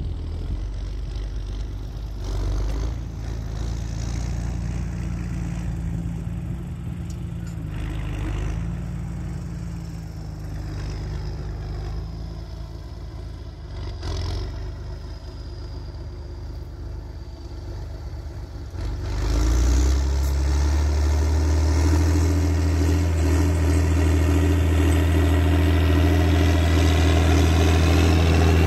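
Tractor engine running steadily while pulling a plough through the field. About two-thirds of the way through it gets markedly louder and fuller.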